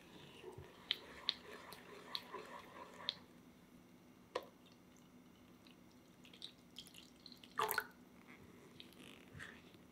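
A silicone spatula stirs a thick egg-yolk mixture in an enamel saucepan, with a run of light clicks and ticks against the pan. Milk is then poured in from a jug, dripping and splashing, with one brief louder splash about three-quarters of the way through.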